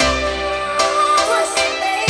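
Background music: an instrumental tune of sustained melodic notes.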